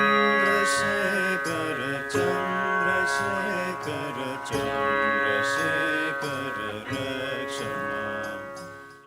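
Indian devotional music: plucked strings over a steady held drone, fading out at the end.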